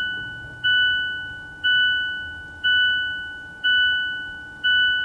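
Mazda CX-5 seatbelt warning chime heard inside the cabin: a two-pitch electronic ding repeating about once a second, each one fading before the next.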